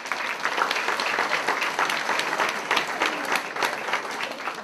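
Audience of parents and students applauding, a dense patter of many people clapping that tails off near the end.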